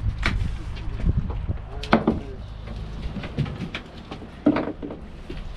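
Low steady hum of a fishing boat's engine, fading about halfway through, with scattered knocks and clunks on the deck.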